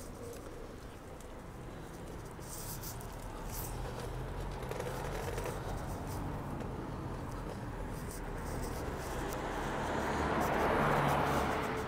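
Town street noise with a low traffic hum; a vehicle passes about ten seconds in, getting louder and then fading.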